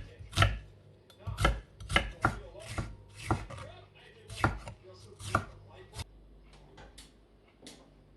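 Knife chopping on a cutting board: irregular strokes, about one or two a second, with the last few lighter.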